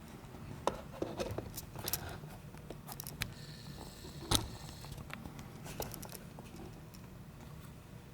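Small metal clicks and light scrapes of an Abloy disc-detainer lock and its parts being handled during disassembly, scattered and irregular, with one sharper click about four seconds in.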